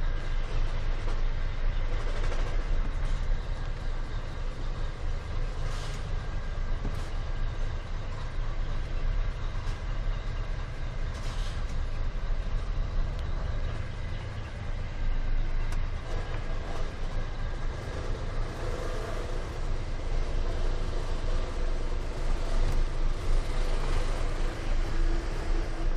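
Scania R420 truck's diesel engine running steadily as the truck creeps through a tight turn, heard from inside the cab.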